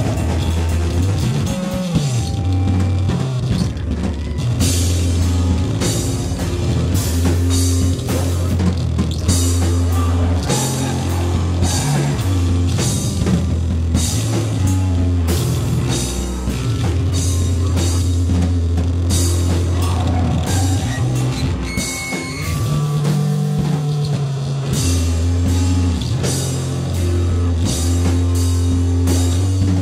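Rock band playing live: drum kit with frequent cymbal crashes over deep, sustained bass notes and guitar.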